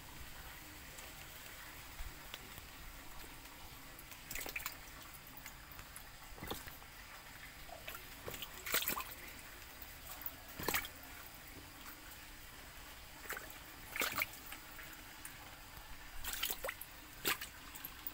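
Frogs snapping at feed pellets floating on the water, making small irregular splashes and plops, a few of them close together near the end.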